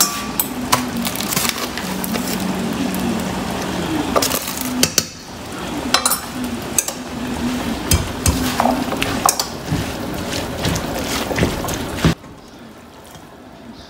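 Chickpea and spinach curry sizzling in a nonstick frying pan, with scattered clicks and scrapes of a plastic slotted spatula against the pan. The sizzle drops away suddenly about twelve seconds in.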